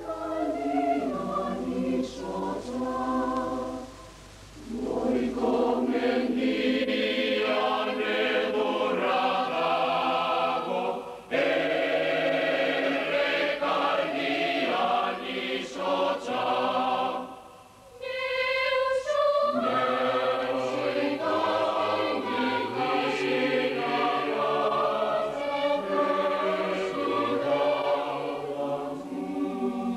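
A choir singing slow sustained phrases in several voices, with short breaks between phrases about four seconds in and again near eighteen seconds.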